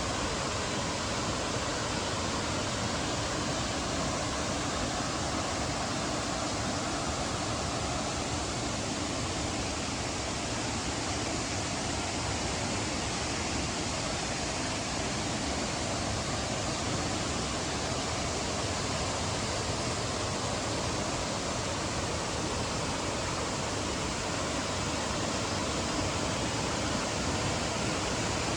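Steady, even rush of water from Mok Fa Waterfall and its mountain stream.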